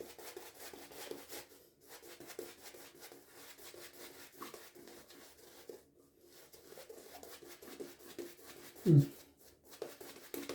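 Synthetic-knot shaving brush worked over stubble to build a face lather: a soft, fine crackling rub of bristles and soap. One short, louder low sound comes near the end.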